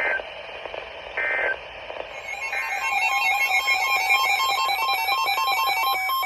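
Emergency Alert System signal: three short digital SAME data bursts about a second apart, then an electronic attention tone, a steady tone near 1 kHz with a warbling sweep about three times a second over several high steady tones, cutting off abruptly near the end.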